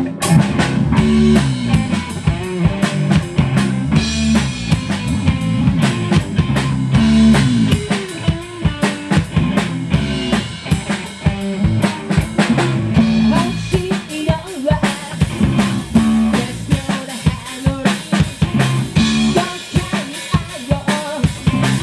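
Live rock band playing an instrumental passage: a drum kit with snare and bass drum hits under an electric guitar. The full band comes in together right at the start.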